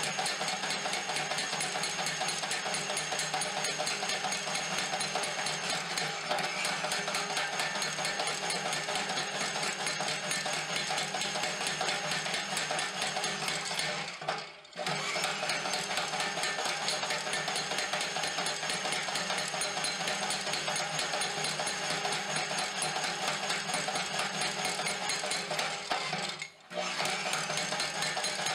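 Homemade Hardy Hammer striking a hot railroad spike over and over to draw it out, played sped up so the metal-on-metal blows run together into a fast, continuous rattle. It breaks off briefly about halfway through and again near the end.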